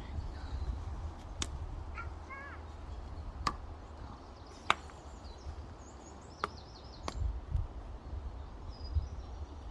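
A handful of sharp, irregular clicks or snaps, the loudest about halfway through, over a low rumble, with faint bird chirps now and then.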